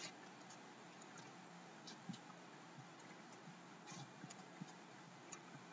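Faint, irregular clicks of computer keyboard keys being typed, over near silence.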